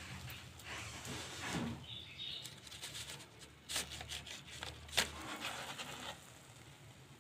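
Oil sizzling around onion-and-egg fritters in a nonstick pan, with sharp clicks and scrapes of a plastic spatula against the pan, the loudest click about five seconds in.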